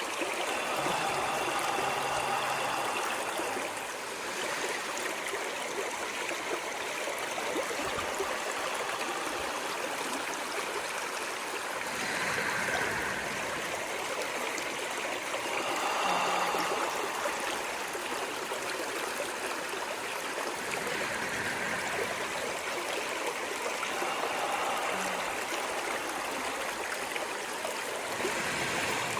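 Running water stream: a steady rush and trickle that swells a little now and then.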